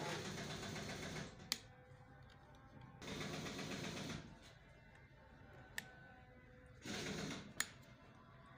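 Handling noise from hands working on a P15 PCP air rifle's wooden stock and fittings: three bursts of rapid rattling scrapes, about a second each, with single sharp clicks in between.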